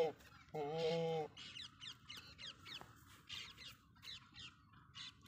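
A goat bleats once, a steady call of under a second near the start, followed by small birds chirping in quick, short, high falling chirps.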